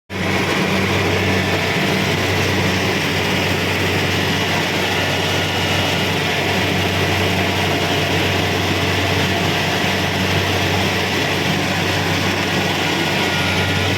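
Kubota DC-70 Pro combine harvester running steadily: a constant low diesel engine hum under an even mechanical hiss, with no change in speed.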